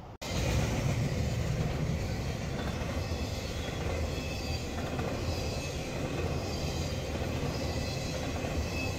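Vehicle driving on the road: a steady rumble of road and engine noise.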